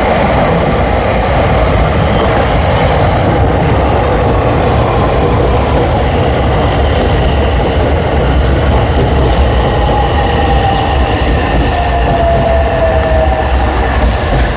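A JR West 227 series electric train rolling into a station platform and braking to a stop. Its steady running noise carries a whine that falls steadily in pitch through the second half as the train slows.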